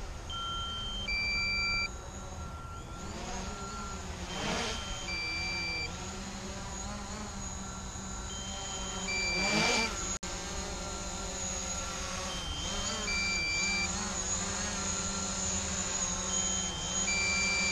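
DJI Mavic Pro quadcopter's propellers buzzing steadily as it comes in to land, swelling and bending in pitch as it passes close about ten seconds in. Over it, an electronic two-note chime repeats about every four seconds, along with runs of short beeps.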